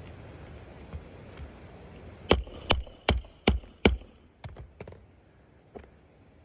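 Hammer driving a nail during shingle repair: five hard, quick strikes with a high metallic ring, followed by a few lighter taps.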